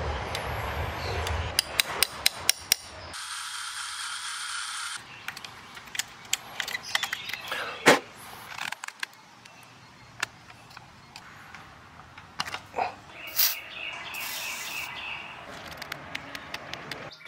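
Hand and power tools taking screws out of the wooden rocking chair frame: a quick run of ratchet-like clicks, scattered sharp knocks on the wood with one loud one partway through, and two short spells of a high whine.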